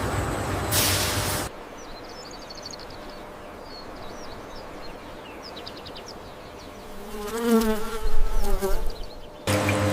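A buzz with a wavering pitch lasts about two seconds, late on, against a quiet background. A steady machine hum stops about a second and a half in and comes back suddenly near the end.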